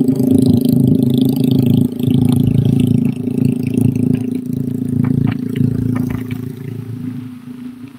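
A motor vehicle engine running close by, steady and loud, with a few sharp rattles past the middle, dying down near the end.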